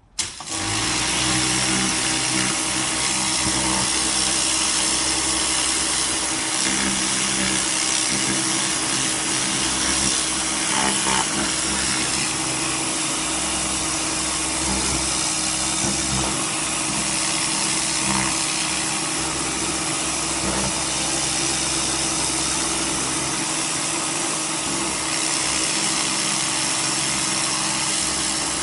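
Kärcher K 2 electric pressure washer running: a steady motor-and-pump hum under a broad hiss of water spray.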